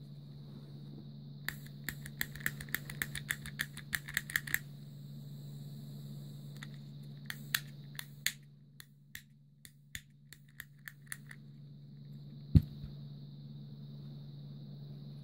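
Butane torch lighter's trigger and piezo igniter clicking over and over without the torch lighting, the sign of a failed igniter. There is a quick run of about four clicks a second, then slower, scattered clicks and one louder knock near the end.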